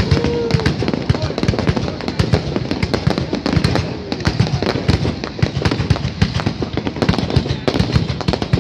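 Aerial fireworks bursting overhead: a dense, continuous crackle of many rapid bangs and pops, loud throughout.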